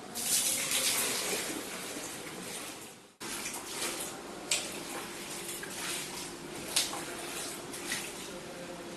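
Water pouring out of a bucket in a steady rush for about three seconds, cut off abruptly. Then standing rainwater being scooped off a tiled floor into a plastic bucket, with a few sharp splashes.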